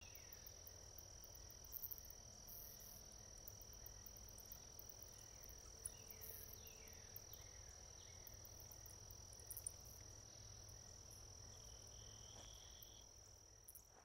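Faint insect chorus, crickets trilling in one steady high-pitched tone, with a few short falling chirps from another animal in the middle. The sound fades out near the end.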